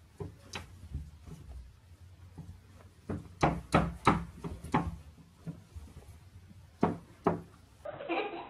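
A run of sharp knocks and taps as a cat and a dog scuffle on a window sill. The loudest come in a quick cluster of about six a few seconds in, with two more near the end.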